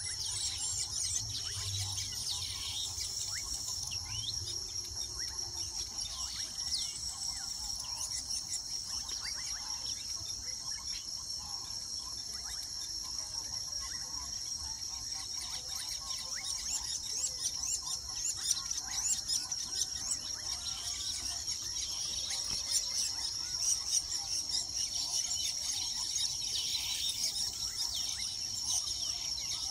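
Weaver birds chattering with many short, high chirps, busier in the second half, over a steady high-pitched insect drone.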